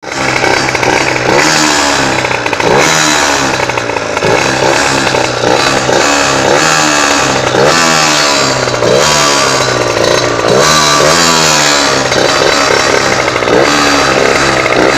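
Derbi DRD Pro 50cc two-stroke engine with an Airsal 49.9 cylinder and Turbokit exhaust, revved up and let fall back over and over, about once a second. The owner hears a strange noise in it that he cannot identify.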